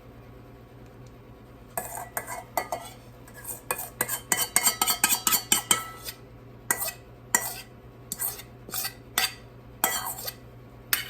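A spoon scraping and clinking against a dish as a creamy soup mixture is scooped and spread. A quick run of clinks starts about two seconds in, then slows to single taps about every half second near the end.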